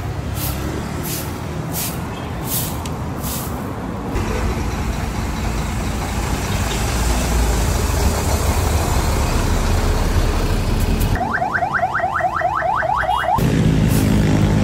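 Broom sweeping pavement in short strokes about twice a second, then the steady noise of road traffic passing close by. About eleven seconds in, a rapid run of rising electronic chirps, about five a second, sounds for about two seconds before the sweeping strokes return.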